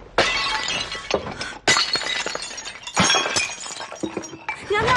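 Porcelain vases smashed on the floor one after another: four sharp shattering crashes in about three seconds, each followed by the clatter and ring of scattering shards.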